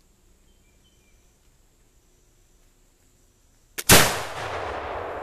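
A .50 caliber Lyman Deerstalker flintlock rifle firing once near the end: a brief crack of the lock and priming flash, then a split second later the loud main report, which rolls away slowly.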